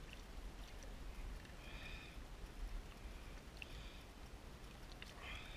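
Faint water splashing at the kayak's side as a small sturgeon tangled in fishing line is handled at the surface, over a low steady rumble. Two short sniffs come about two seconds in and near the end.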